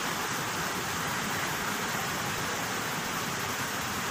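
Rushing river water: a steady, even rush of flowing water.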